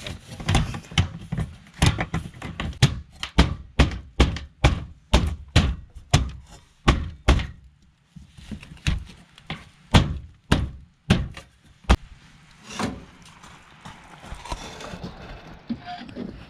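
A metal furnace vent sleeve being knocked into a hole through the wall: a quick run of dull thuds, about two a second, then a short pause and a few slower thuds that stop about thirteen seconds in.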